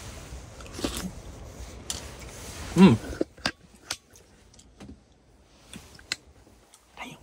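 A spoon clicking and tapping against a pot while eating, a few sharp light clicks spread out. There is an appreciative hummed "mmm" about three seconds in, and a faint steady hiss that stops just after it.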